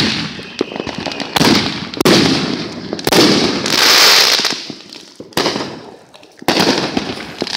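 Consumer fireworks going off: about five loud bangs a second or two apart, each followed by a hiss that fades away.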